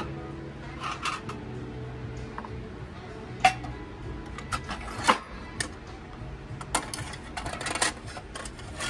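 Quiet background music playing, with scattered sharp clicks and knocks, the loudest a few seconds in.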